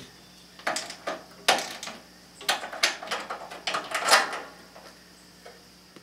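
Irregular metal clicks and scrapes of a wrench undoing the single bolt that holds a riding mower's starter solenoid to the frame, and of the solenoid being worked loose and lifted out.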